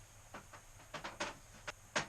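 A few faint, short clicks and taps from a plastic bottle and bamboo skewer being handled, the skewer worked through holes in the bottle to form a perch.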